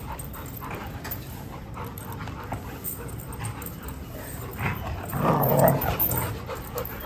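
Two German Shepherd-type dogs play-fighting and making dog noises, which get louder for about a second, about five seconds in.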